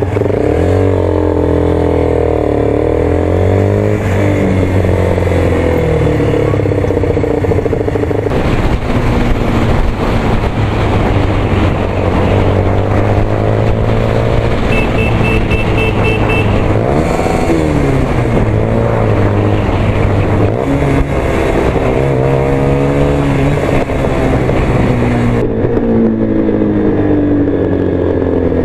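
Motorcycle engine heard from the bike's onboard camera, its pitch rising and falling as it revs and changes speed in city riding, with road and wind noise. A short run of high beeps sounds about halfway through.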